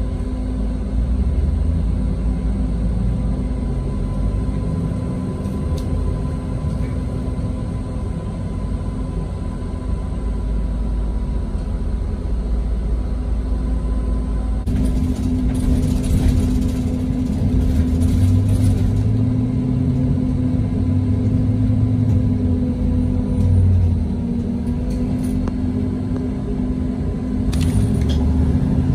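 Cabin noise inside a transit bus crawling in traffic: a steady engine rumble with a low hum whose pitch rises and falls as the bus pulls ahead and slows.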